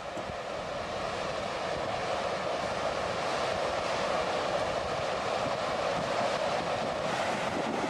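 Muddy flash flood rushing past with a steady, churning noise of debris-laden water.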